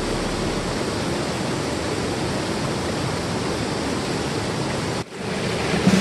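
Steady rush of falling water from a creek waterfall, an even hiss and roar that drops out briefly about five seconds in.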